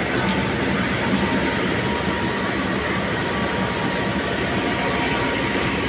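Steady rumble and hiss of a train at the station, running evenly with no sudden events.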